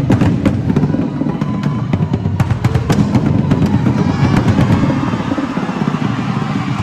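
Marching bass drum line playing, with many sharp clicks over the drum notes in the first half and a denser run of notes in the second half.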